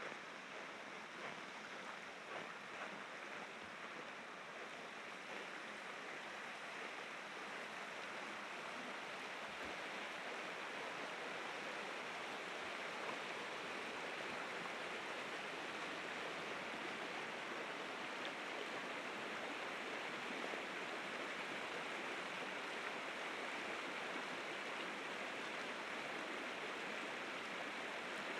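Steady rush of open river rapids, growing a little louder after the first few seconds. Faint crunching footsteps in snow can be heard at the start.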